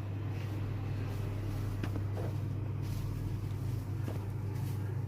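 A steady low hum, with a few faint clicks about two and four seconds in.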